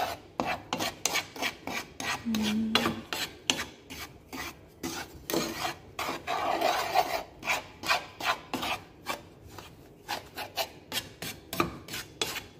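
Wooden spatula scraping and stirring a dry mixture of toasted flour and sugar around a metal pan, in quick repeated rasping strokes, about three a second.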